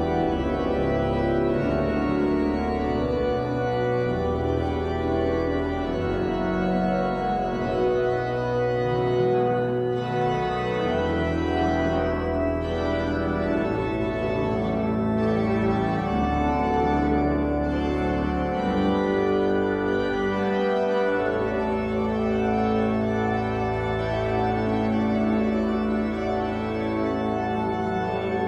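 Church organ playing sustained chords over a bass line that moves every second or two, at a steady volume.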